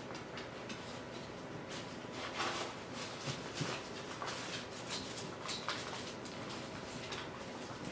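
Gift wrapping paper crinkling and rustling in short, scratchy crackles as a small dog noses and tugs at it.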